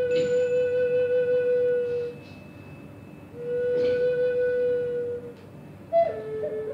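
Native American flute playing long held notes of about two seconds each, each starting with a breathy puff, with short pauses between them. Near the end a higher note with a quick flutter steps down to a lower one.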